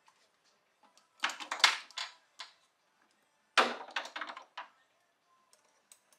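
Two short bursts of clattering and knocking from metal hand tools being picked up and handled in a car's engine bay, each a quick run of several sharp strokes, with faint ticks around them.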